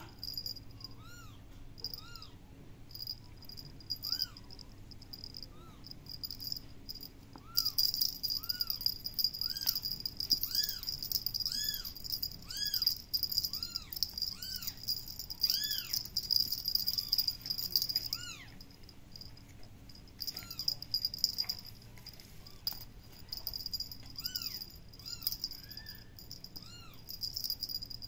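Kitten mewing over and over, short high-pitched mews that rise and fall, about one a second.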